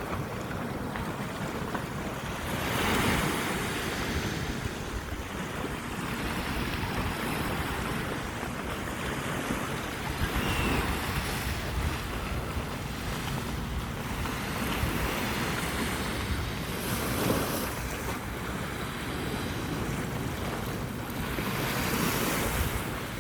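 Sea surf on a beach: waves breaking and washing in, a continuous rushing that swells and ebbs several times.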